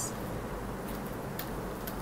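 Steady low hum and hiss of a quiet room, with no distinct sound.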